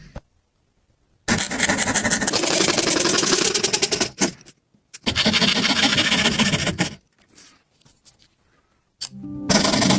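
Two bursts of harsh scraping or grinding noise, a little under three seconds and about two seconds long, with a rapid fine rattle running through them. This fits a tool working on hard material.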